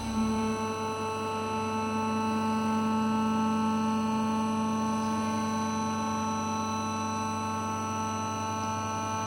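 A heavy welding positioner's drive running with a steady whine of several held tones.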